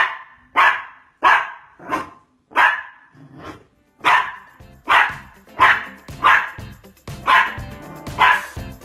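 A dog barking over and over in a steady rhythm, about one bark every two-thirds of a second, starting suddenly. Music comes in underneath about halfway through.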